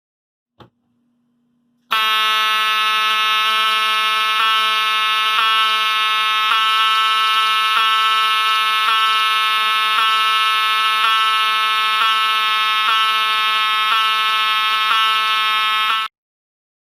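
Wheelock 7002-24 mechanical fire alarm horn (newer version) sounding a continuous, steady buzzing blare for about fourteen seconds, then cutting off suddenly. Before it starts, about two seconds in, there is a click and a brief low hum.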